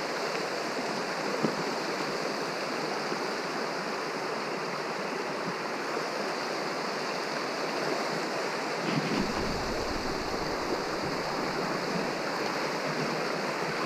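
Shallow mountain creek rushing over rocks, a steady wash of running water. A low rumble joins about nine seconds in.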